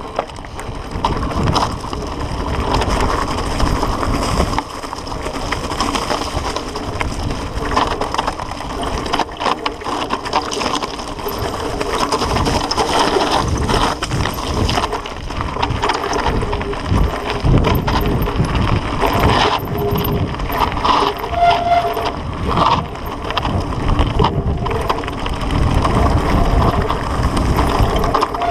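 Mountain bike riding fast down a loose gravel and stone trail: tyres crunching over the stones, and the bike rattling and knocking with each jolt.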